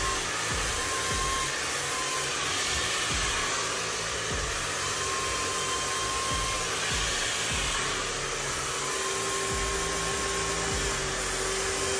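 Hand-held hair dryer blowing steadily: a constant rushing of air with a faint steady hum underneath.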